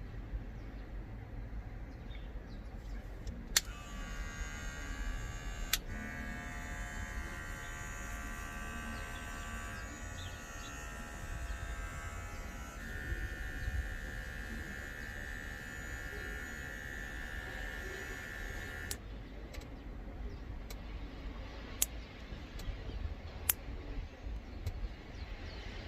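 Kemei 1998 cordless hair clipper switched on with a click a few seconds in, running with a steady high buzz for about fifteen seconds, its pitch shifting partway through, then switched off with a click. A few more sharp clicks follow.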